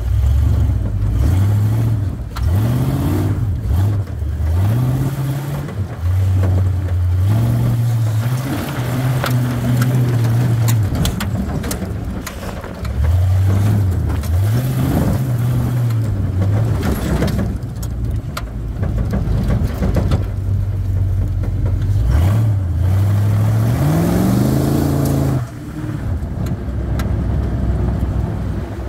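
1976 Ford Bronco's V8 running under hard driving, revving up and easing off again and again, the pitch climbing and falling back several times, heard from inside the cab.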